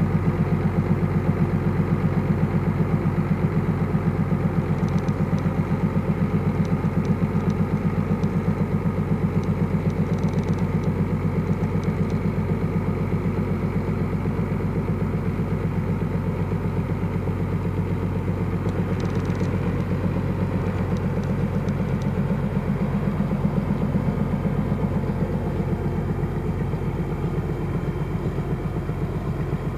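International DT-530 8.7-litre six-cylinder diesel engine of an AGCO Allis 9675 tractor idling steadily, with an even low pulse and no change in engine speed.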